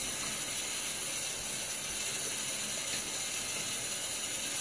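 Bathroom sink tap running steadily while shaving lather is rinsed off the face between passes.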